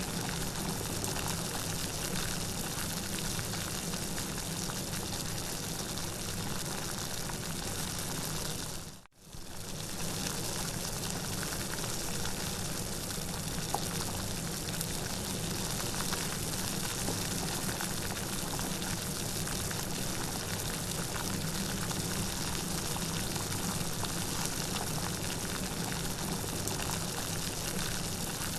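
Steady heavy rain falling as a dense, even hiss. About nine seconds in it dips away almost to silence for a moment, then comes straight back.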